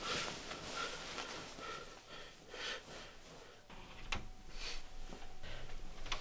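Duvet and bedclothes rustling in short bursts as someone shifts and turns over in bed, with a sharp click about four seconds in.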